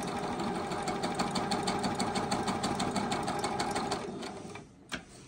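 Juki HZL-009 computerized sewing machine running a darning stitch pattern: rapid, even needle strokes that slow and stop about four seconds in, followed by a single click.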